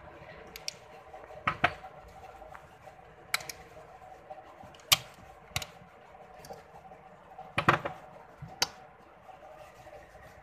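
Hands handling a rough mineral specimen: a dozen or so scattered sharp clicks and taps, the loudest a close pair about a second and a half in and a cluster about seven and a half seconds in. A steady low hum runs underneath.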